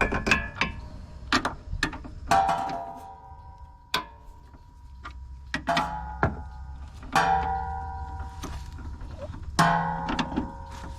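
Metal hand tools clinking and clanking, a series of sharp clicks and knocks; three of the strikes ring on for about a second at the same bright metallic pitches.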